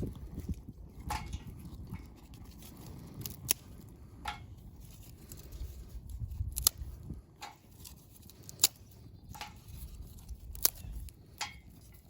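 Small fire of pine-needle tinder and twigs crackling, with sharp pops every second or two over a low rumble.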